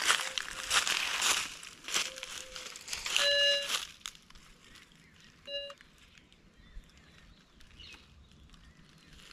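Footsteps crunching through dry fallen leaves, then a Minelab Go-Find 66 metal detector sweeping over a freshly dug hole gives one buzzy beep about three seconds in and a shorter one about two seconds later.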